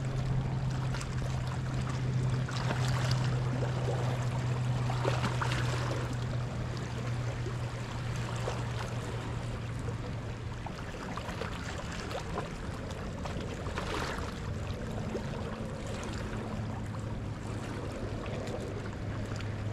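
Sea water washing over a rocky shore with a steady low hum underneath that drops slightly in pitch about halfway through.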